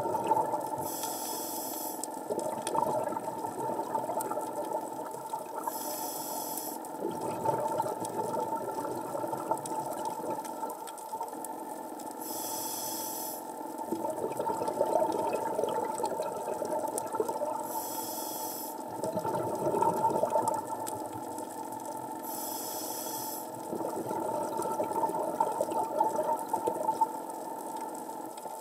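Scuba diver breathing through a regulator underwater: a short hissing inhale about every five seconds, with exhaled bubbles gurgling in between.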